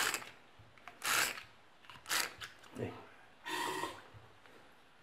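Four short rubbing, scraping noises from a plastic syringe being handled against a sealed lead-acid battery's cell openings while refilling it with distilled water.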